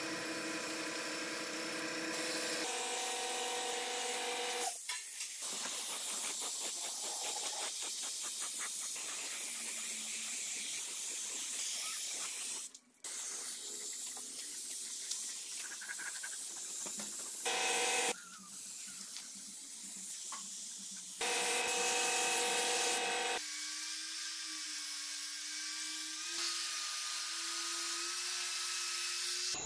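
Compressed-air paint spray gun hissing in a series of bursts as motorcycle engine parts are spray-painted. Near the end an electric angle grinder runs steadily with a slightly wavering hum, polishing a small engine part.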